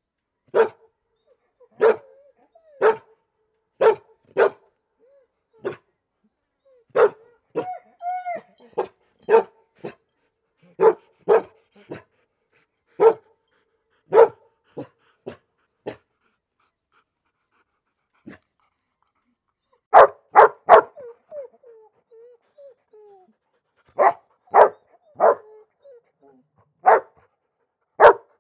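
A dog barking in short single barks, mostly about one a second, with a brief whine about eight seconds in. After a pause of a few seconds comes a quick run of three barks, then more single barks.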